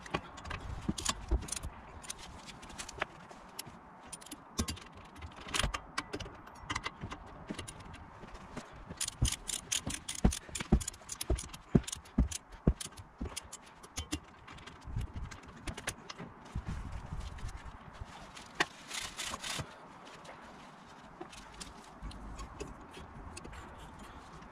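Ratchet and torque wrench clicking as the brake pad carrier bolts on a Mazda 3's front hub are run in and tightened to 90 Nm, with scattered metal clinks of tools and parts. There are two quick runs of rapid clicking, one about nine seconds in and one near nineteen seconds.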